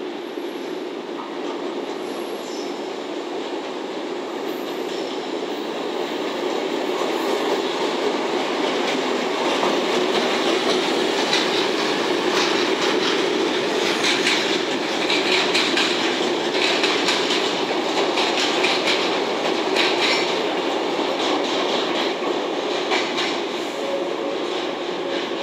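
JR EF65 electric locomotive hauling four flatcars loaded with rails, running close by: a steady rail rumble that builds over the first several seconds and, at its loudest, carries many sharp clicks of wheels over rail joints, then eases near the end.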